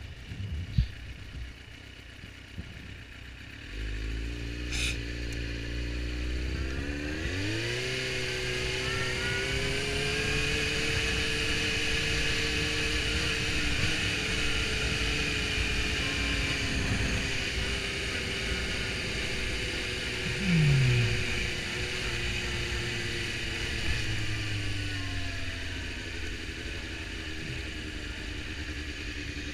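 Suzuki GSX-R750's inline-four engine pulling away from a stop, rising in pitch as it accelerates, then running steadily at cruising speed and easing off near the end. A short, louder falling tone is heard about twenty seconds in.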